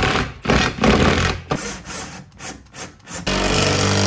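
Bosch 12-volt cordless driver driving bolts through a metal wall bracket into anchors in a wooden stud, in several short bursts, then one steadier run of about a second near the end.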